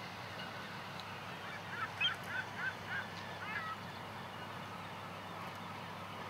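A bird giving a quick series of about six short calls about two seconds in, over a steady background hiss.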